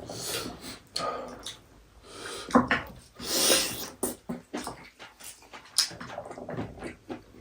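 Close-up eating sounds of goat-meat soup being eaten: wet slurps, lip smacks and chewing clicks, with one longer slurp about midway.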